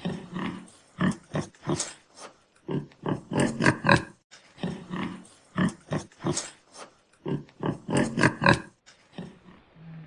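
Warthog grunting in short, irregular bursts, several in quick succession, then a brief pause before the next cluster.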